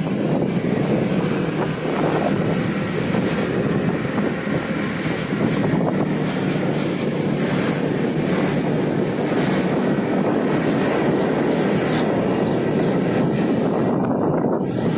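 A car driving: steady engine and road rumble, with wind buffeting the microphone.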